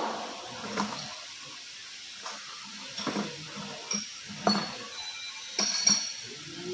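Metal tools and gearbox parts clinking and knocking against each other in about six separate strikes, each with a short metallic ring.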